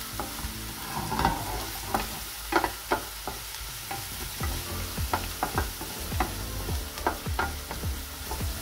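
Chopped spring onions and garlic sizzling in hot steak fat in a frying pan, stirred with a wooden spatula that scrapes and taps against the pan in short, irregular knocks over a steady hiss.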